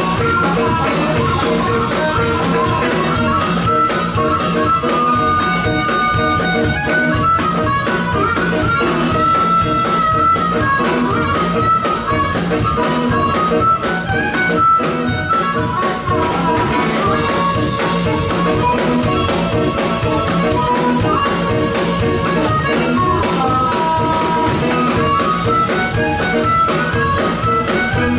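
Live blues band playing: an amplified harmonica, cupped against a microphone, carries a wandering lead line over electric guitars and a steady drum beat.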